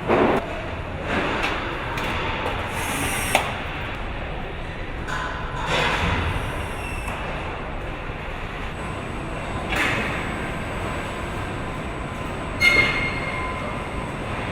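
Car assembly plant ambience: a steady machinery hum broken by short clanks and hisses every couple of seconds, one near the end with a brief metallic ring.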